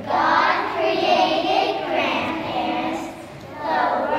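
A group of young children singing a song together, with a short break between phrases about three seconds in.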